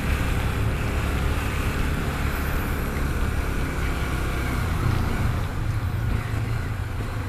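Honda CB300's single-cylinder engine running steadily at low speed in slow traffic, with a steady hiss of wind and wet-road noise; its low hum rises slightly about five seconds in.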